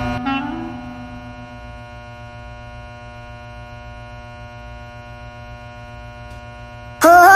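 Film soundtrack music: a woodwind-like phrase fades out in the first second into a steady, sustained drone over a low pulsing hum. Near the end, loud music with a sung melody cuts in suddenly.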